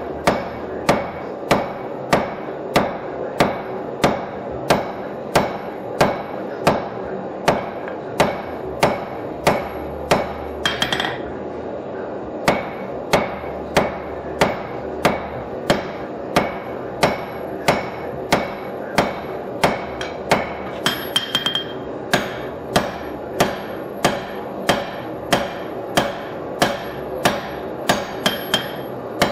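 Hand hammer striking red-hot leaf-spring steel on an anvil in a steady rhythm, about one and a half blows a second, with a short pause about eleven seconds in. The blows are flattening and drawing out the bowed spring steel. A steady hum runs underneath.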